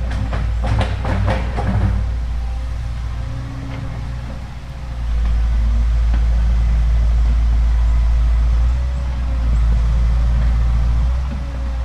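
Excavator engine running under load, with a quick series of sharp cracks or knocks in the first two seconds. The engine gets louder about five seconds in and stays up until shortly before the end.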